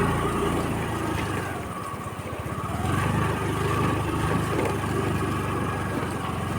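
Yamaha ZR scooter's single-cylinder engine running as the scooter is ridden slowly through mud. The engine eases off about two seconds in and picks up again a second later.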